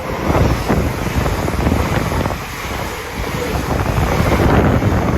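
InterCity 225 express (Class 91 electric locomotive 91 107 with driving van trailer 82 213) passing through at speed: a loud, steady rush of wheel and air noise, with wind buffeting the microphone.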